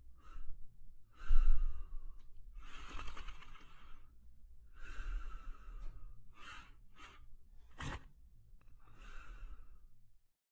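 A sleeping German Shepherd snoring: a run of long, airy breaths at uneven intervals, the loudest about a second in.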